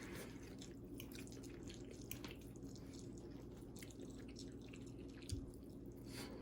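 Faint eating sounds: small wet mouth clicks of someone quietly chewing food, over a steady low hum, with one soft thump about five seconds in.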